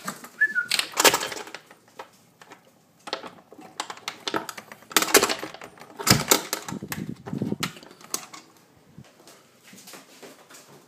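Irregular sharp knocks, taps and rattles, loudest about a second in and again around five and six seconds in, thinning out near the end, with a brief high squeak near the start.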